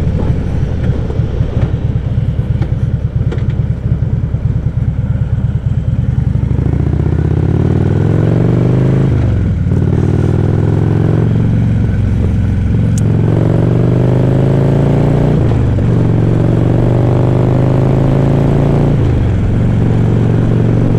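Harley-Davidson Ultra Classic Limited's Twin Cam 103 V-twin, heard from the bike itself. It rumbles unevenly at low revs for about six seconds, then pulls away, the engine note climbing through several upshifts, each shift a sudden drop in pitch.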